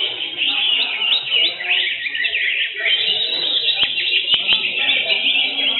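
Cucak hijau (greater green leafbirds) singing in competition: a fast, unbroken stream of chirps, trills and whistles from several birds at once. A few sharp clicks come about four seconds in.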